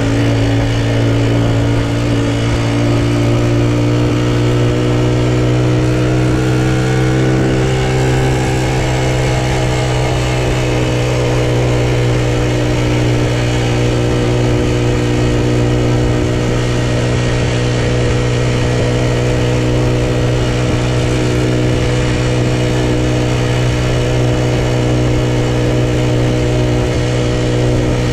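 Honda Super Cub's single-cylinder four-stroke engine running steadily while riding, with a steady hum. Its pitch shifts briefly between about six and ten seconds in, then holds.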